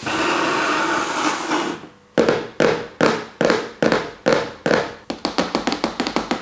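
A steady hiss for about two seconds, then a run of sharp, evenly spaced taps, about two and a half a second, quickening to about five a second near the end.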